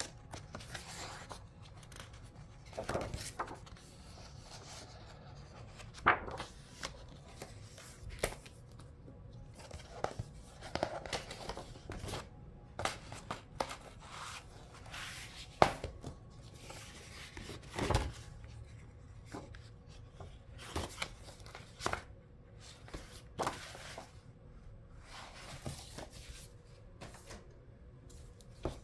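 Pages of a picture book being turned and handled by hand: irregular paper swishes and rustles, with a few sharp taps, the loudest about six, sixteen and eighteen seconds in.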